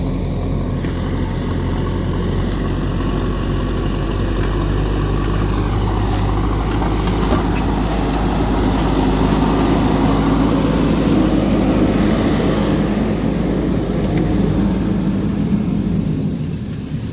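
JCB backhoe loader's diesel engine running under working load. It grows louder through the middle and eases off near the end.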